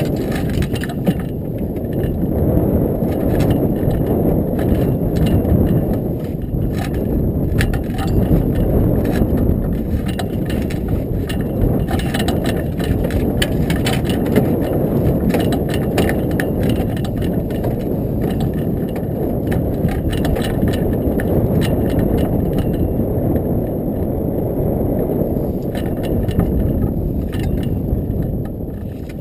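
Steady low rumble of wind buffeting the camera microphone in a small open boat, with scattered light clicks and knocks throughout.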